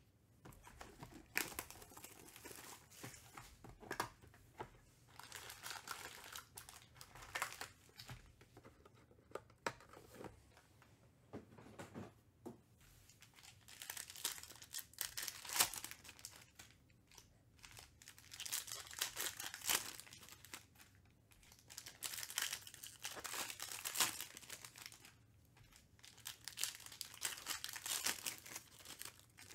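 Foil wrappers of Panini Chronicles baseball card packs crinkling and tearing as they are ripped open by hand, in irregular bursts.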